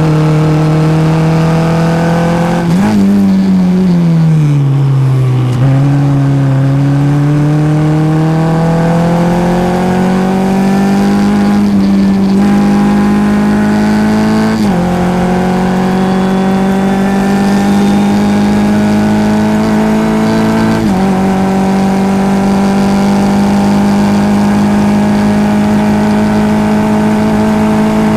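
Formula F race car engine heard onboard. About three seconds in it blips on a downshift and its pitch falls under braking, then it runs up through the gears, with shifts about 12, 15 and 21 seconds in, each dropping the pitch before it climbs again.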